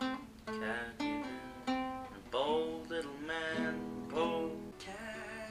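Classical guitar with nylon strings played fingerstyle: a run of plucked notes and chords, some sliding in pitch.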